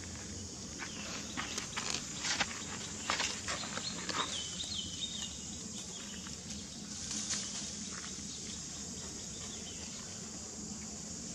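Outdoor ambience: a steady hiss, with a run of sharp clicks and taps in the first few seconds, a brief high squeak about four seconds in, and a short rustle a little later.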